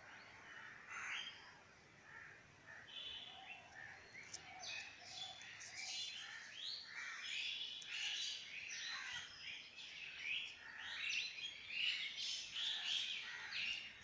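Many small birds chirping and calling at once, a busy chorus of short chirps that starts sparse and thickens about four seconds in.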